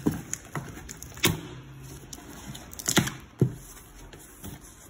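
Cardboard box and plastic wrap being handled as a glass nano aquarium is unpacked: a few sharp knocks and bumps, with rustling between them.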